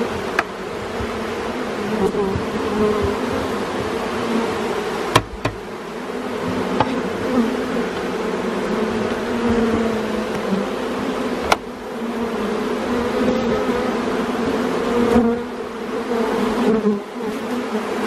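A dense honey bee colony buzzing steadily as its comb is cut out, a low drone that wavers slightly in pitch. Three sharp clicks cut through it, near the start, about five seconds in and a little past eleven seconds.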